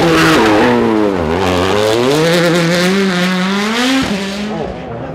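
Hyundai i20 WRC rally car's 1.6-litre turbocharged four-cylinder engine at stage pace passing close: the revs drop about a second in, then climb steadily under acceleration. The sound cuts off abruptly about four seconds in, and a different car's engine takes over, quieter.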